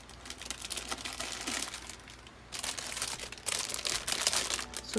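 Packaging crinkling and rustling as it is handled, a busy crackle that grows louder in the second half.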